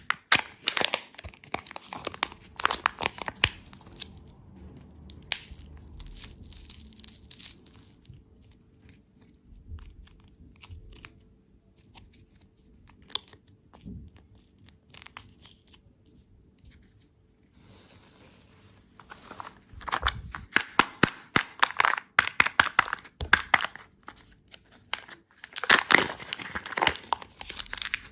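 Plastic wrapper being crinkled and torn, a dense crackling that comes in two spells: in the first few seconds, then again from about two-thirds of the way in, with only scattered crackles between.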